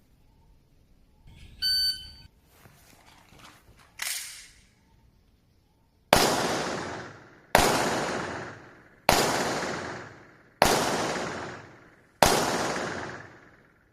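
An electronic shot-timer beep, then a single sharp crack about two seconds later, followed by five loud handgun shots fired about a second and a half apart, each ringing out in a long echo.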